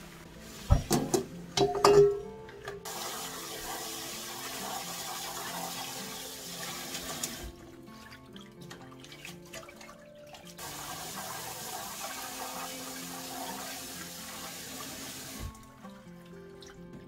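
A few loud clattering knocks, then a tap running into a stainless-steel kitchen sink as greens are rinsed in a pan of water. The water stops for a few seconds in the middle and then runs again, with splashing as the greens are lifted into a mesh strainer. Background music plays throughout.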